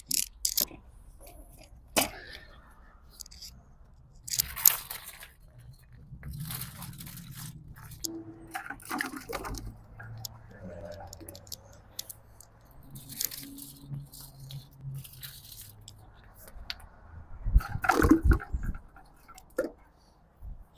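Hulled black walnuts knocking and clattering as they are gathered and dropped into a bucket, in scattered clatters with a louder burst near the end, and water splashing as the bucket is filled for a float test.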